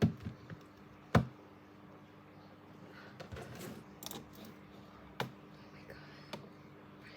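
Objects being handled: four sharp knocks or clicks, the loudest two at the start and about a second in, with softer rustling in between.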